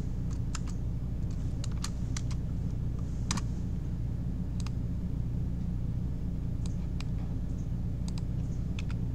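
Computer keyboard keys tapped in scattered single strokes, a few a second with pauses, the loudest a little over three seconds in, over a steady low hum.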